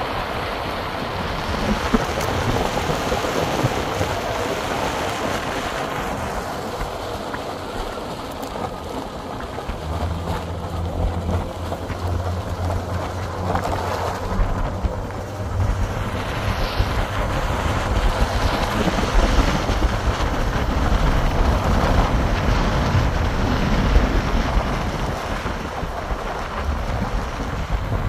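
Wind buffeting the microphone on a moving vehicle. From about ten seconds in, a steady low engine hum runs underneath.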